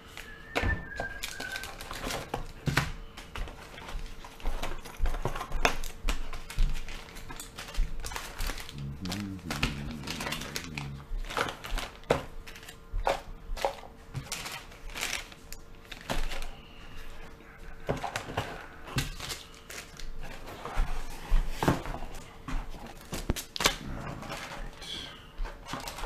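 Fishing tackle and its plastic packaging being handled: irregular clicks, knocks and crinkling as items are taken out of a cardboard box and set down on a desk.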